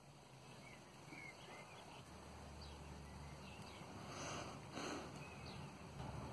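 Faint scattered bird chirps, with two brief handling noises about two thirds of the way in as metal mail rings are worked together by hand.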